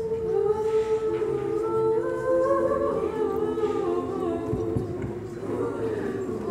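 Youth choir singing a cappella, several voice parts holding sustained chords that shift slowly from note to note.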